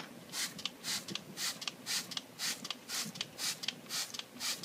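Trigger spray bottle of all-purpose cleaner squirting over and over into a plastic tub of small plastic parts, short hissing sprays about two a second.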